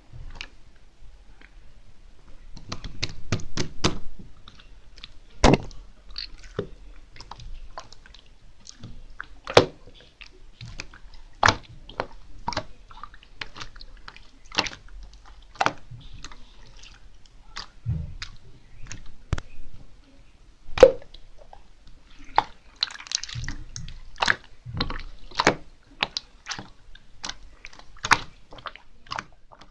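Slime being squeezed and stretched by hand, giving irregular sharp wet pops and clicks, a few a second.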